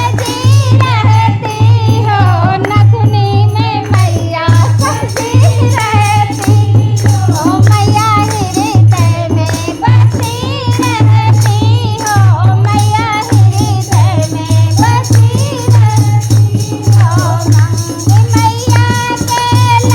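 Hindi devotional song to the goddess: a melody, most likely sung, over a pulsing bass beat with rattling, shaker-like percussion.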